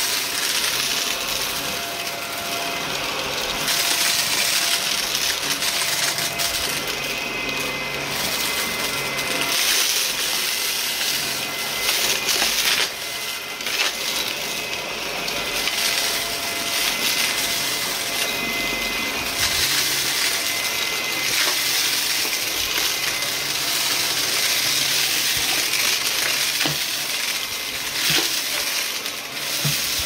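Shark upright vacuum cleaner running over carpet: a steady motor whine and rush of suction, with scattered crackles and clicks as grit and crumbs are sucked up.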